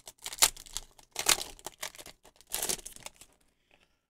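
Foil Pokémon booster pack wrapper crinkling in the hands in about four short bursts, as the pack is handled and its cards are pulled out.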